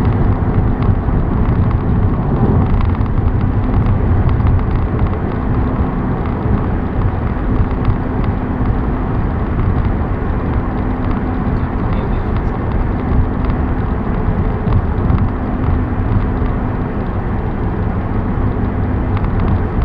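A car driving at highway speed: a steady drone of road and engine noise with a low hum.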